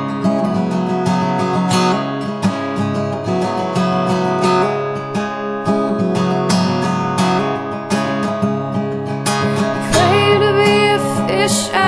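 Background music: a strummed acoustic guitar song, with a voice starting to sing about ten seconds in.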